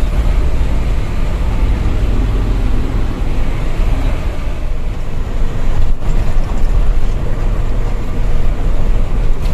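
Fuso Fighter dump truck's diesel engine and road noise heard from inside the cab while driving at speed, a loud steady drone with a deep low end, briefly dropping out about six seconds in.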